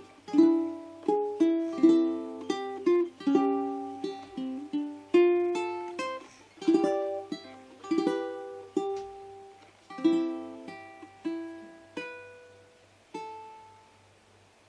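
ACE D65 all-solid-mahogany tenor ukulele played with plucked notes and chords. The piece slows near the end, and the last note rings out and fades away.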